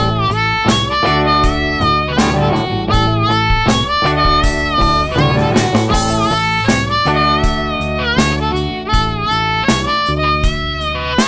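Instrumental passage of a blues song: guitar and a bending lead melody line over a steady beat, with no singing.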